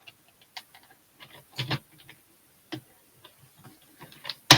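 Small plastic brick-built model parts clicking and knocking as they are handled, a few light taps spread out and one sharp, louder click near the end.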